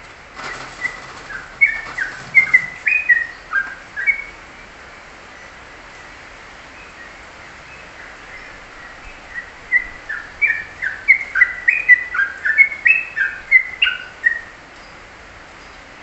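Caged songbird singing in two bursts of quick, chirpy whistled notes: one near the start lasting about four seconds, and a longer, denser run from about nine seconds in.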